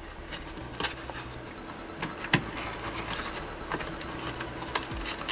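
Faint, scattered clicks and taps of hard plastic being handled as a battery pack and its wires are pressed into a toy RC car's battery compartment, over a low steady hum.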